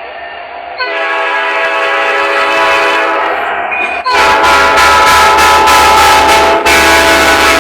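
Train horn of KN380 sounding a chord of several steady notes in long blasts: it swells louder about a second in, breaks off briefly near three and a half seconds, then sounds louder still, with one short break near the end.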